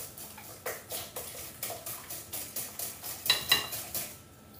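Milk being poured from a saucepan into a mixing bowl, with repeated short clinks and scrapes of kitchenware against the pan and bowl. It goes quieter near the end.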